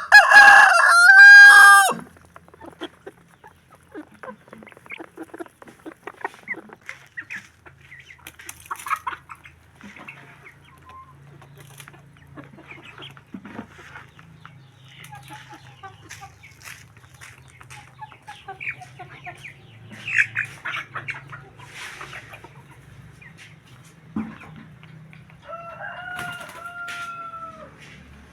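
Rooster crowing: one loud crow at the start and a fainter second crow near the end, with scattered chicken clucks in between.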